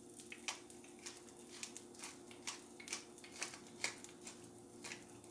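Hand pepper mill being twisted to grind peppercorns: a run of quiet, crunchy clicks, about four a second, over a faint steady hum.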